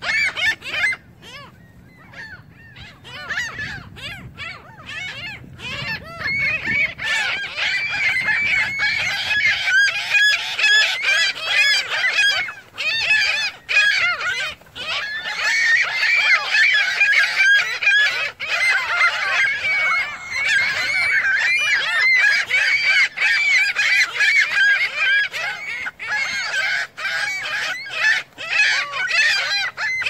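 A flock of ring-billed gulls calling over one another, sparse at first, then from about seven seconds in a dense, continuous clamour of overlapping high calls as the gulls crowd in to feed.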